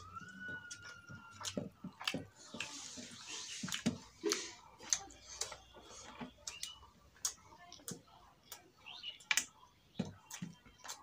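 Eating rice and fish curry by hand: irregular wet mouth smacks and clicks of chewing, with fingers mixing and scraping rice on a steel plate.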